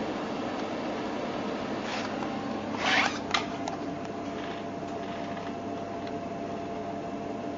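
Real Sword Type 97 airsoft rifle firing: a brief rasping shot about three seconds in, followed by a sharp click, over a steady background hum.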